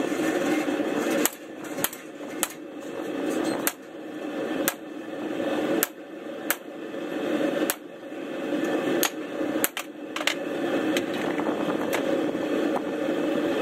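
Hand hammer striking a hot-cut chisel to split hot steel bar stock for split-rein tongs: sharp metal strikes at irregular intervals of about a second, stopping about two-thirds of the way through. The forge runs with a steady rushing noise underneath.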